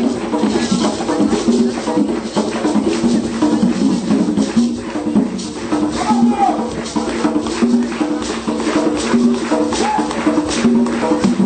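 Live band music: a repeating melody with dense, rhythmic hand percussion.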